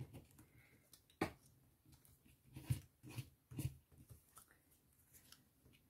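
A few light taps and knocks, about a second in and then three more close together near the middle, from paper crafting materials being set down and handled on a work surface.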